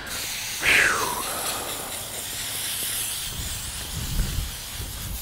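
Outro sound effect: a steady hissing whoosh with a brief falling whistle-like tone about a second in, the loudest part, and a low rumble near the end before it cuts off.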